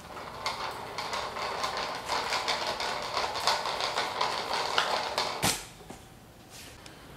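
Plastic toy dump truck, powered by a tape measure's spring pulling a thread wound on its rear axle, rolling across a tiled floor: a clicking rattle of wheels and body that grows louder as it comes near. It ends with a sharp knock about five and a half seconds in.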